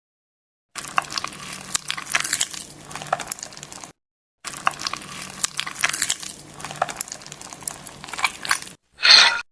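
Close-miked crunching and crackling with many small sharp clicks as slime ingredients are worked by hand. It comes in two separate stretches with dead silence between them, then a short louder burst near the end.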